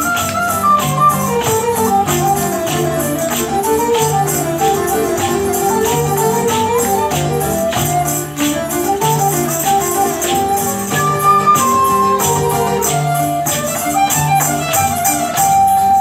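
Live medieval music: bowed fiddles playing a flowing melody in two parts over a frame drum with jingles keeping a steady beat.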